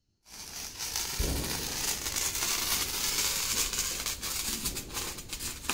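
Hand-held sparkler burning with a steady fizzing hiss and scattered sharp crackles.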